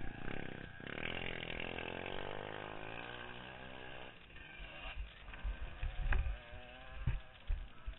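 Engine of a TPC 450 three-wheeler revving, its pitch falling away over about three seconds as the revs drop. It is followed by low, uneven rumble and a few sharp knocks near the end.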